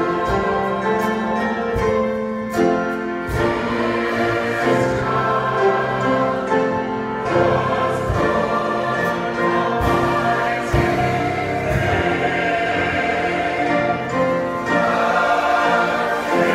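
Mixed choir of men's and women's voices singing.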